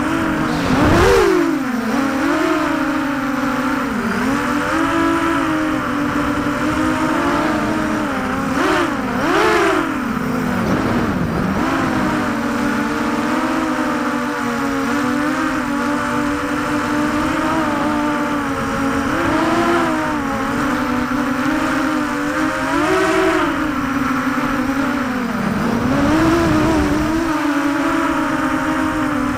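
ZMR 250 racing quadcopter's brushless motors and propellers whining steadily through the onboard camera, the pitch swooping up and down with the throttle several times.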